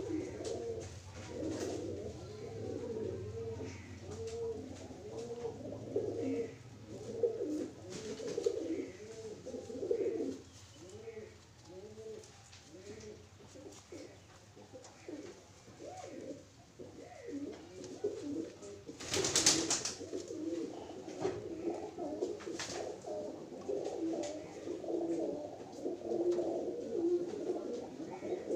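Domestic pigeons cooing over and over in the loft, with a brief loud rustling burst a little after two-thirds of the way through.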